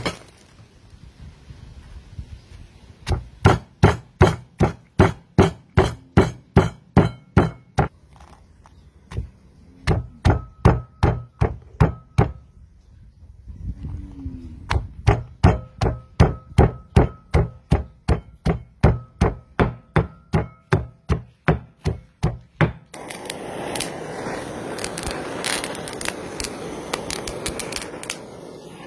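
Stone pestle pounding lemongrass and spices in a stone mortar: loud, even knocks at about two to three a second, with a short break about halfway. Near the end the knocking stops and gives way to a denser crackling and scraping as leaves are worked on a wooden block.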